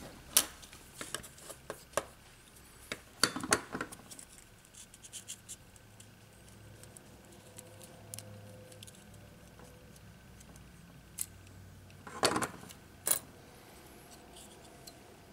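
Small plastic parts of a Scrabble Flash electronic cube being pried apart and handled: scattered sharp clicks and scrapes, clustered about three seconds in and again near the end, with a quiet stretch between.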